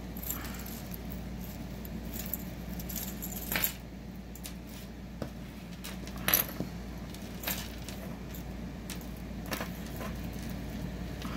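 Small metal costume-jewelry pieces (chains, charms and earrings) jingling and clicking against each other as a tangled lot is pulled apart by hand. A handful of sharper clicks stand out, the loudest about six seconds in.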